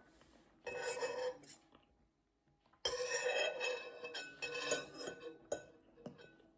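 Cutlery scraping and clinking against dinner plates, in two spells with a short pause between and a few brief ringing tings.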